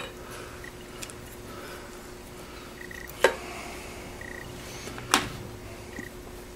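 Two sharp clicks about two seconds apart, with a few fainter ticks, as push-on wire connectors are worked off the terminals of a 25 amp bridge rectifier on an electric mower motor; a faint steady hum runs underneath.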